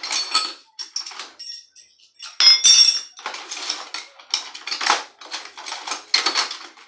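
Metal wrenches and hand tools clattering and clinking as a hand rummages through a plastic bucket of them, hunting for the right wrench. The loudest clank, with a ringing tone, comes about two and a half seconds in.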